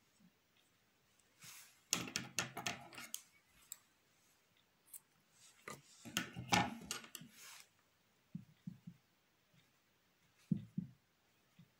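Handling noise from yarn and a crocheted doll being worked by hand: two spells of quick rustling and clicking, then a few soft low knocks near the end.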